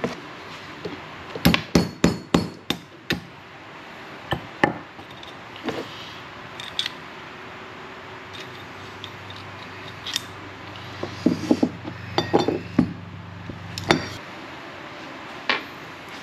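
Metal tools and parts clinking and knocking: a series of sharp clicks, some ringing briefly. A low steady hum comes in about halfway and stops near the end.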